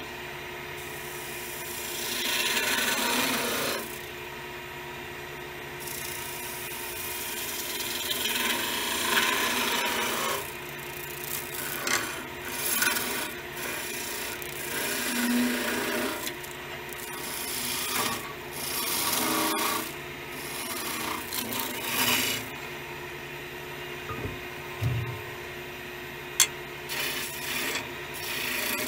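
Skew chisel cutting a spinning willow spindle on a wood lathe: the shaving cut swells and fades in repeated passes over the lathe motor's steady hum. A single sharp click near the end.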